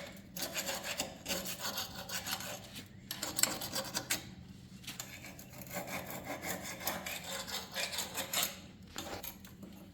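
Hand paint scraper scraping loose, flaking paint off a Bobcat 721 skid steer's bodywork in repeated rasping strokes, with a few short pauses.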